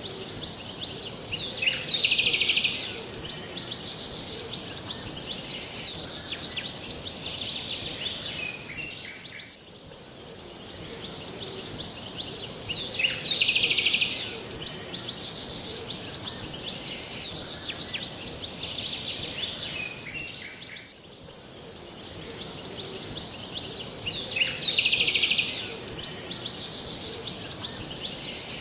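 Looped outdoor nature ambience: a steady hiss with birds chirping. A louder burst of bird calls comes back about every eleven seconds.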